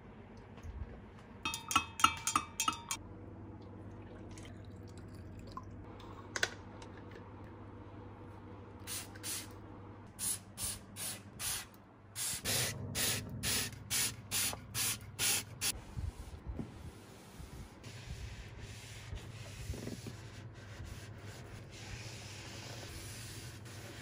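A few light clinks near the start. Then a hand-pumped trigger spray bottle sprays vinegar-and-water cleaner in about fifteen short bursts, roughly two a second, followed by a cloth rubbing over the fridge's plastic interior with a soft, steady hiss.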